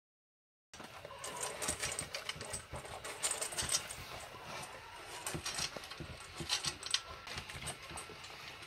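Alaskan Malamute eating dry kibble from a stainless steel bowl: a rapid, irregular run of crunches and clicks that starts about a second in.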